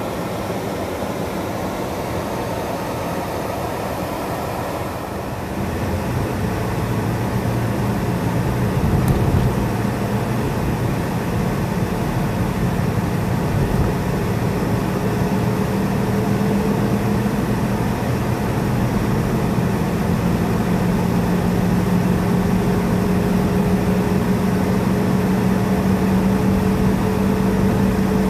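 Car cabin noise from engine and tyres while driving on a boulevard. About five seconds in it gets louder as the car picks up speed, and a low engine hum then climbs slowly in pitch.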